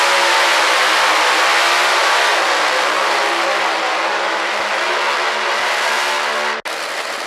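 A tractor-pulling vehicle with a red hot-rod car body running its engine flat out as it drags a weight-transfer sled down the track, a loud, steady, dense engine sound. It eases a little partway through and cuts off suddenly near the end, giving way to a quieter engine sound.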